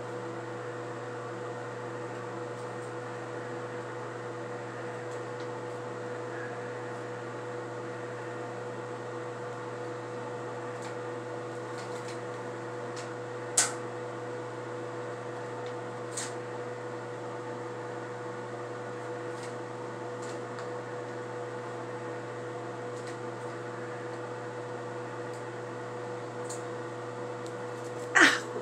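Steady hum of a small motor running, with a couple of sharp clicks partway through and a louder knock near the end.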